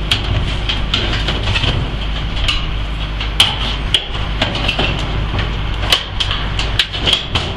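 Irregular sharp metallic taps and clanks of hand tools working on sheet metal, over a steady low rumble.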